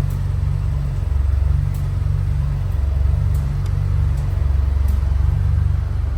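Volkswagen Jetta GLI's front suspension giving small, faint clicks a few times over a steady low road rumble while driving. The owner takes the clicks for a damaged strut top-mount bearing, mostly on the right side.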